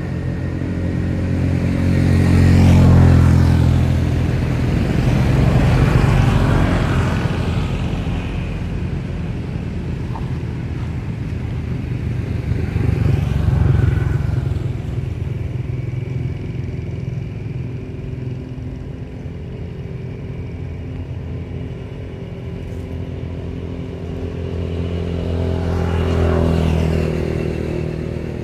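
Motor-vehicle traffic passing: engines swell and fade about four times, with a low engine hum continuing between the passes.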